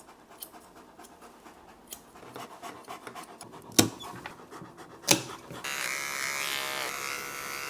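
Leonberger dog panting, with small clicks and two loud sharp clicks. About three-quarters of the way through, electric grooming clippers switch on and run with a steady buzz.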